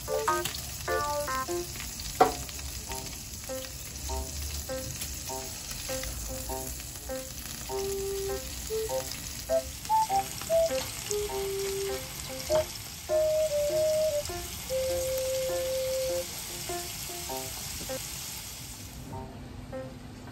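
Pork belly and shrimp sizzling on a foil-lined electric grill, a steady high hiss that stops shortly before the end. Background music with a melody plays throughout, and a single sharp click sounds about two seconds in.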